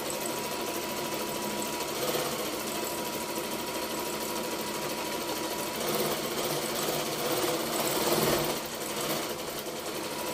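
Janome N3000 electric sewing machine running steadily, stitching a decorative scallop pattern through fabric.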